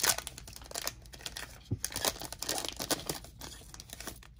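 The wrapper of a trading card pack being torn open and crinkled: irregular crackling, loudest at the start and thinning out toward the end.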